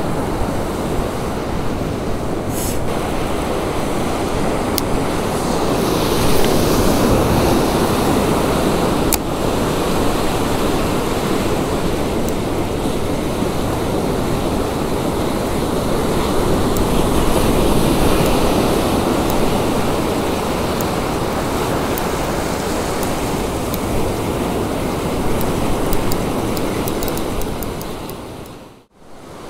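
Ocean surf breaking and washing up the beach, a steady rush of noise that fades out near the end.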